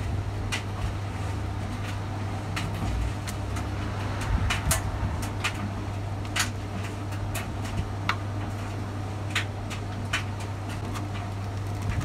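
Scattered light clicks and taps of parts being handled and fitted on top of an engine's valve cover, over a steady low hum.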